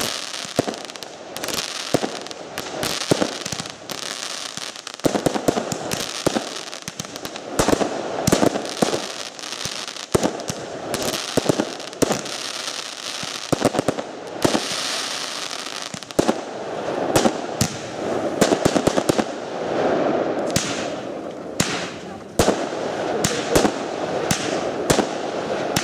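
Aerial fireworks display: shells launching and bursting in a rapid, continuous string of bangs and crackles.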